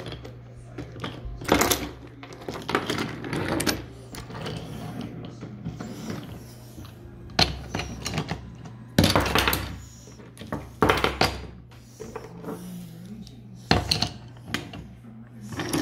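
Wooden toy trains rolling and clattering over wooden track joints, with irregular bursts of clicking and knocking.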